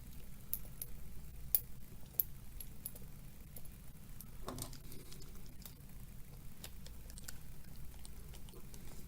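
Scattered light clicks and taps of small hard parts being handled as an RC beadlock wheel and its ring are fitted together, the sharpest about a second and a half in and a brief clatter halfway through, over a low steady hum.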